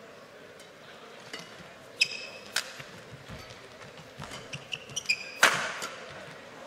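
Badminton rally: sharp racket strikes on the shuttlecock mixed with short squeaks of court shoes on the mat. The loudest hit comes about five and a half seconds in and is followed by a brief rush of noise.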